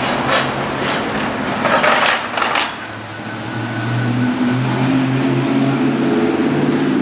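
San Francisco cable car rolling past close by on its rails, clattering and knocking for the first few seconds. After that comes a steady low hum.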